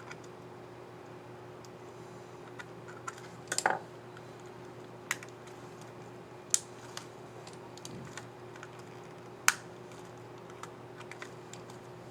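Scattered plastic clicks from an HP Pavilion x360 14 laptop keyboard as a keycap and its scissor mechanism are handled and pressed. There is a quick cluster of clicks early in the middle, then three louder single clicks spread out, with fainter ticks between.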